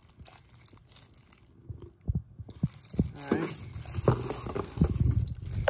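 Ceiling-fan packaging being handled as the box is unpacked: cardboard and wrapping rustling, with irregular knocks of parts and a short pitched squeak about three seconds in. Quiet for the first two seconds.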